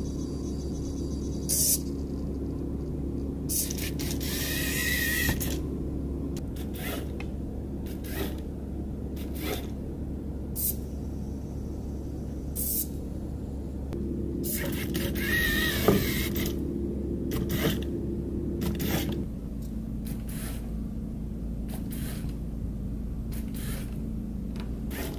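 Small robot car's electric gear motors running with a steady hum whose pitch shifts a couple of times, with scattered sharp clicks and knocks and two short hisses.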